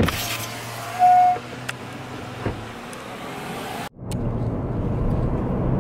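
Car engine running at a standstill with a steady low hum, and a short high tone about a second in. After a sudden cut, the road and engine noise inside a moving car, louder and denser.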